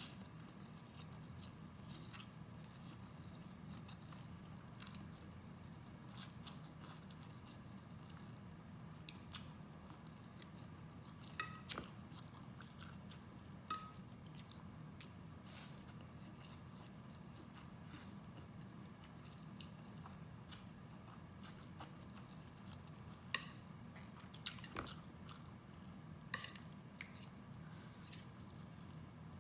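Close-miked eating sounds: a person chewing and slurping vermicelli noodles, with scattered short wet mouth clicks, a few of them louder, over a steady low hum.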